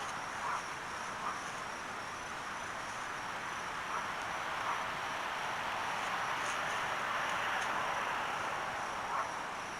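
Steady outdoor ambience: a constant high insect trill over a steady hiss that swells a few seconds in, with a few faint ticks.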